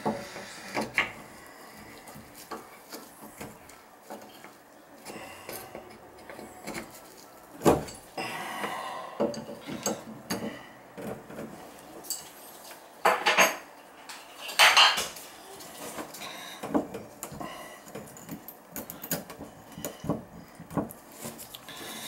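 Metal clinks and scrapes of a tool and brass valve parts being handled at a tub/shower valve stem. The sounds are scattered and short, with a few louder knocks about a third of the way in and again past the middle.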